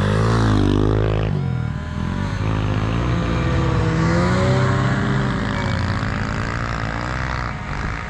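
A snowmobile and a dirt bike engine running and revving as they pass on a snowy trail, with a steady engine note whose pitch rises and falls.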